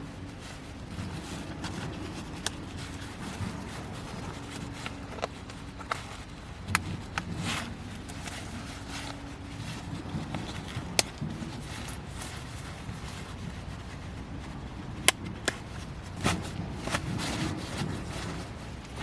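Scattered sharp clicks and light knocks, a dozen or so spread irregularly, over a steady low background.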